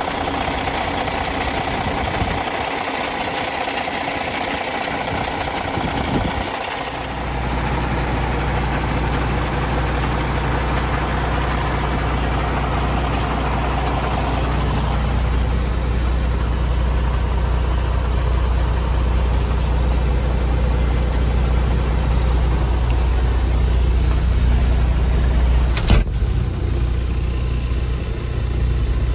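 Cummins X15 inline-six diesel idling steadily. About seven seconds in, a deep low drone takes over as the sound is heard from the cab. There is one sharp knock near the end.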